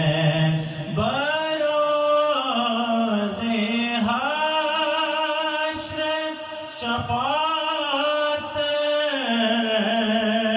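A man singing a naat, Urdu devotional praise of the Prophet, unaccompanied into a microphone. He holds long, ornamented notes in phrases that rise and fall, with short pauses for breath.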